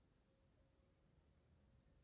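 Near silence: room tone with a faint low rumble.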